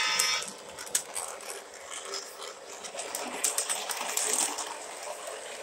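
Lionel O gauge diesel model locomotive running on three-rail track. Its horn sound cuts off about half a second in, and then comes an irregular clicking and rattling of the wheels and motor as it rolls along.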